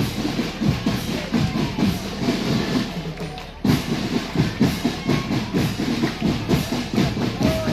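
Marching drum band playing a steady, fast percussion beat of drums and cymbals. The sound breaks off abruptly about three and a half seconds in and starts again.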